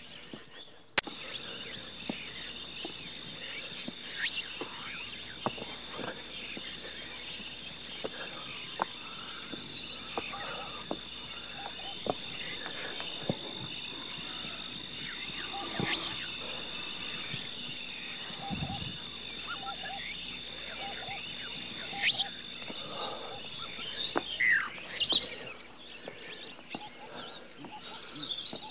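A steady, high-pitched, pulsing chorus of calling animals, at about two pulses a second over a constant shrill tone. It cuts in abruptly with a click about a second in and stops just as suddenly near the end, as an added wildlife sound track would.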